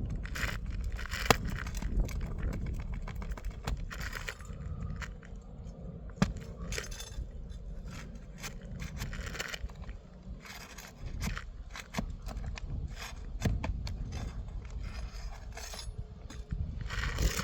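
Hand work on an asphalt shingle roof: irregular scrapes, sharp clicks and clinks as a roofing tool works under the shingles above a repair site, over a steady low rumble.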